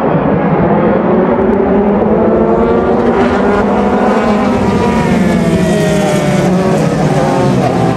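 A pack of JAF-F4 formula racing cars accelerating hard off the race start, several engines at high revs overlapping, their pitches rising and shifting against one another as the field runs into the first corners.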